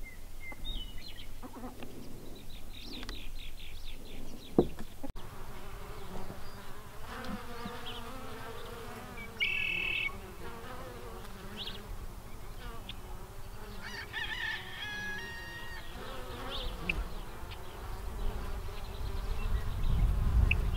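Honey bees humming at a hive entrance, a steady drone with bees flying in and out, starting after a cut about five seconds in. Short high bird chirps come and go throughout.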